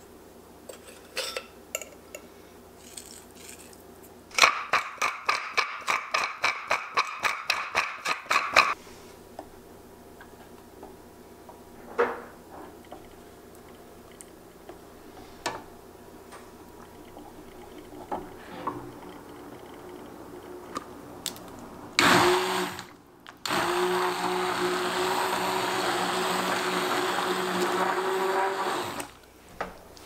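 Immersion blender pureeing tomato soup in the saucepan: a short burst, a brief pause, then about five seconds of steady running that stops suddenly. Earlier, a few seconds of quick, regular stirring strokes against the pan, about six a second.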